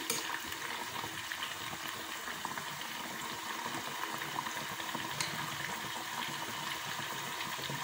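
Rice puri (pathal) deep-frying in hot oil in a pan, the oil bubbling with a steady hiss and crackle.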